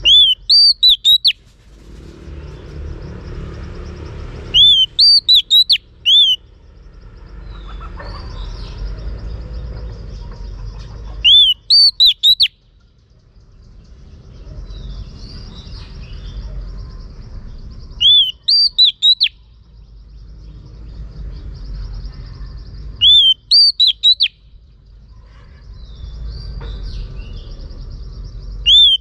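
Female oriental magpie-robin calling: bursts of four or five loud, sharp, rising-and-falling whistled notes, repeated about every five to seven seconds. This is the female's call that stirs males to sing.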